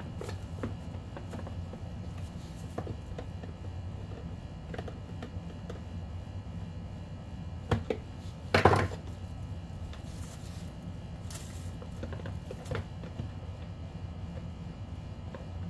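Scattered light clicks and knocks of hands working on the plastic housing and linkage of a car's HVAC unit, with two louder knocks about eight seconds in, over a steady low hum.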